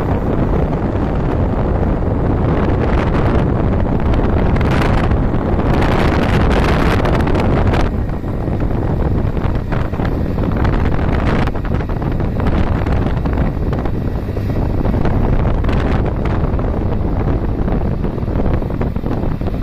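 Loud wind buffeting the microphone of a camera carried on a moving motorbike: a dense rumble with gusts that flare up through the first eight seconds and ease a little after.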